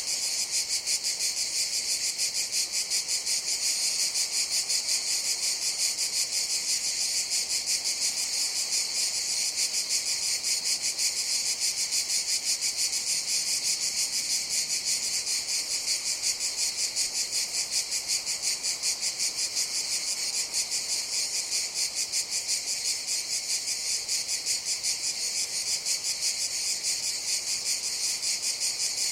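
Cicadas singing in a continuous high-pitched buzzing chorus with a fast, even pulse.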